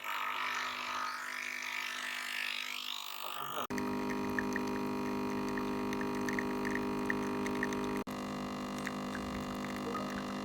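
Eupa TSK-1866AS espresso machine running: a steady hiss for the first few seconds, then, after a sudden cut, a steady droning buzz that runs on through a second cut.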